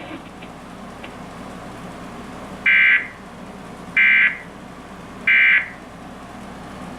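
Emergency Alert System end-of-message code: three short, identical bursts of warbling digital data tones, evenly spaced a little over a second apart, starting nearly three seconds in and marking the end of the alert broadcast.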